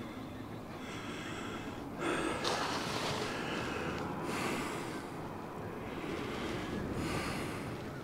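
Someone close to the microphone breathing heavily in a few long, noisy breaths, out of breath after a long stair climb.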